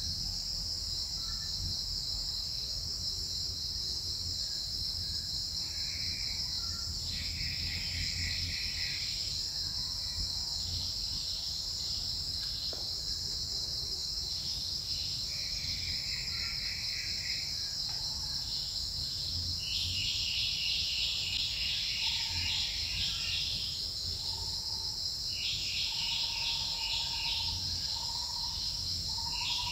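Steady, high-pitched drone of forest insects, with bursts of rapid pulsed trills coming and going from several seconds in, and short whistled notes joining in the last third.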